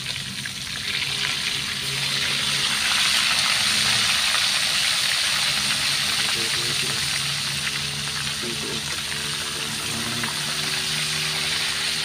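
Fish deep-frying in hot oil in a metal wok: a steady hissing sizzle that grows louder over the first few seconds as a second fish goes into the oil.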